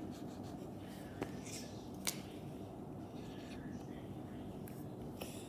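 Felt whiteboard eraser rubbing on the board and a dry-erase marker scratching out a number, in short scratchy strokes, with two sharp clicks about one and two seconds in.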